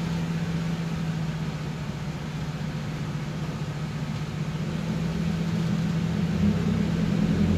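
Mitsubishi Fuso Rosa minibus's diesel engine running, heard from inside the passenger cabin as a steady low drone that dips a little and then grows louder near the end.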